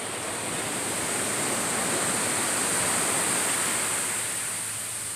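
Ocean surf: a wave breaks and washes up the beach, swelling for a couple of seconds and then easing off.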